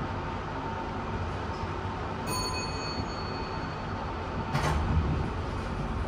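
A 1992 Fujitec lift car travelling down with a steady rumble and a faint steady whine. About two seconds in there is a short electronic beep. About four and a half seconds in comes a clunk as the car stops and the door starts to slide open.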